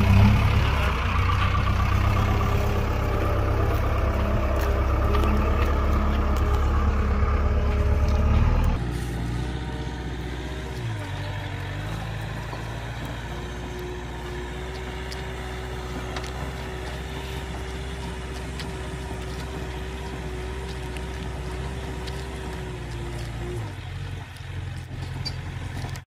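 JCB 3DX backhoe loader's diesel engine running hard while the machine works, then, about nine seconds in, dropping suddenly to a quieter steady run with a held whining tone that fades shortly before the end.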